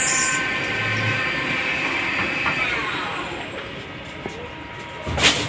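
CNC lathe drilling a through-hole in extruded rod stock under coolant spray, a steady machining noise with several held tones. About two and a half seconds in, the tones glide downward as the spindle slows at the end of the drilling step, and a short loud burst of noise comes near the end.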